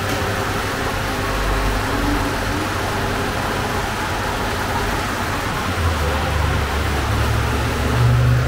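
Steady mechanical roar with no pauses. About six seconds in, a deeper low engine-like rumble joins it and stays to the end, typical of a motor vehicle running near the street side of the shop.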